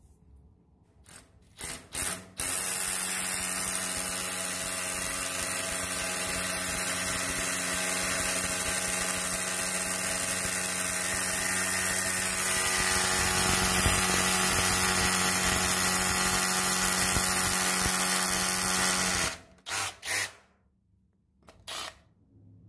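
Milwaukee M12 cordless rotary hammer, a few short trigger blips, then running steadily at an even pitch for about 17 seconds. It stops abruptly, followed by a couple more short blips.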